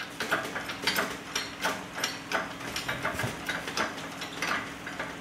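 Red shop engine hoist being worked to take up the weight of the engine: a steady run of sharp metallic clicks, about two to three a second.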